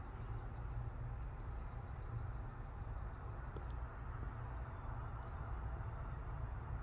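Crickets chirping in a steady, unbroken high-pitched trill, over a low rumble.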